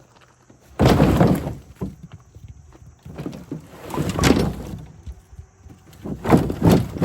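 Wood pieces knocking and clattering in a plastic yard dump cart. A loud tumble comes about a second in, more knocks follow a few seconds later, and a run of clatter starts near the end.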